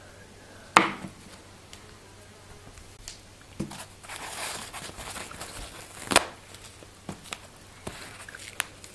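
Paper towel torn off the roll and rustled, with a sharp knock about a second in, another sharp click a little after the tearing, and a few lighter taps and clicks on a table.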